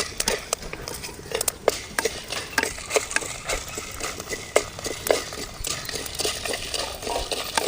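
Whole spices (black pepper, cumin, fenugreek, dried red chillies) dry-roasting in a hot pan, crackling in scattered small pops while a ladle stirs and scrapes them around the pan.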